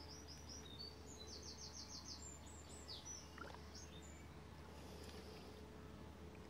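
Faint songbird calls: a few short high chirps near the start, then a fast trill of about eight even notes, then scattered single chirps, over a quiet steady background.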